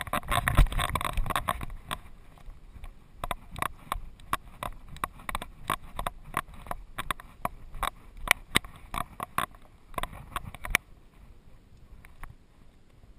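A dog's footfalls on bare rock heard through a camera strapped to its back: a run of sharp clicks and taps, about four a second, after a louder rustling in the first two seconds, stopping about eleven seconds in.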